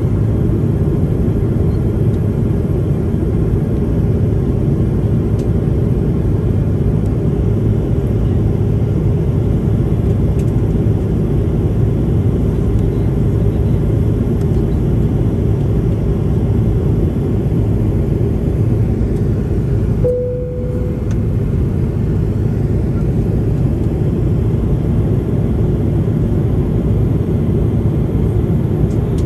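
Steady airliner cabin noise in flight: an even, deep rumble of the engines and airflow. A short tone sounds briefly about two-thirds of the way through.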